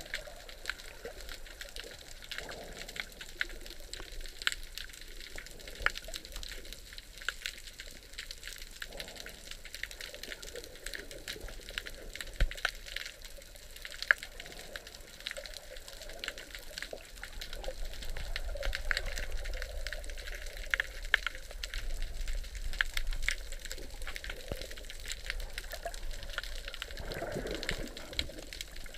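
Underwater sound heard by a submerged camera: a muffled water rush with many scattered sharp clicks and crackles throughout. The low rush grows louder about two-thirds of the way through.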